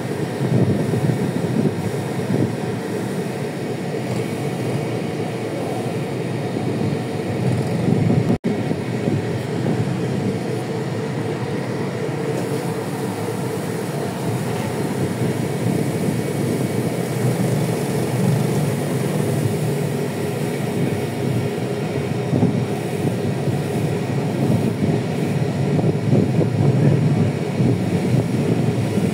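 Steady mechanical rumble of a fishing vessel's machinery running on deck, cut off for an instant about eight seconds in.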